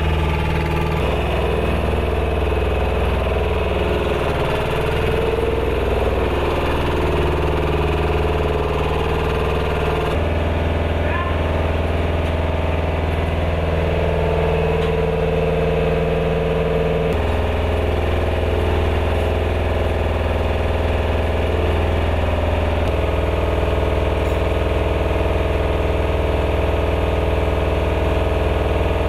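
Engine of a munitions lift truck (bomb loader) running steadily at idle, a continuous low hum whose tone shifts abruptly three times.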